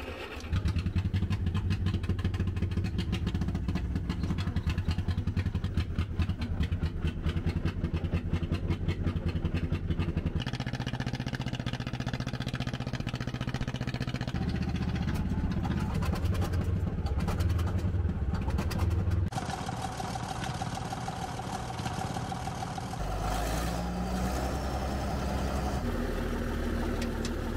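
Old Caterpillar D8 bulldozer starting and running: a rapid, even engine clatter that begins about half a second in. The clatter changes its sound twice along the way, and near the end it settles into a lower, steadier run.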